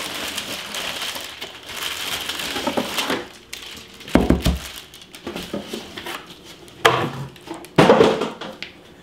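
Packing paper and plastic wrap crinkling and rustling as a cast iron Dutch oven is unpacked from a cardboard box, with a heavy thud about four seconds in and a few more knocks and rustles near the end.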